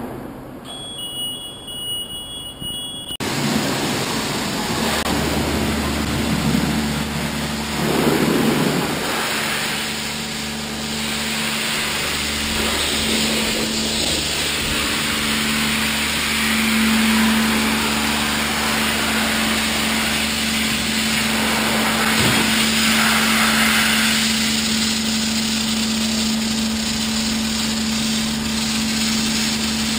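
High-pressure washer running: a steady spray hiss with a continuous pump-motor hum beneath it, as the jet rinses a ship's cooler bundle, starting about three seconds in.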